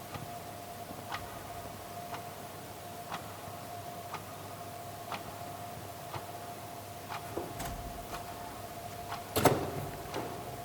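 Clock ticking about once a second over a steady hum. A single loud thud lands about nine and a half seconds in.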